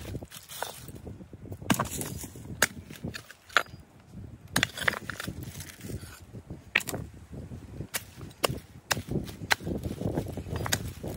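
Irregular sharp knocks and clicks, about a dozen over several seconds, with low rustling or scraping between them.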